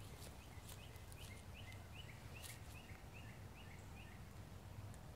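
A bird calling faintly in a run of about ten short, repeated chirps, roughly three a second, each dropping in pitch; the run stops about four seconds in. Low background rumble lies underneath.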